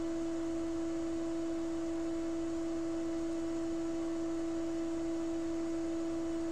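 A steady, unbroken mid-pitched tone with a fainter tone an octave above it, holding the same pitch and loudness throughout.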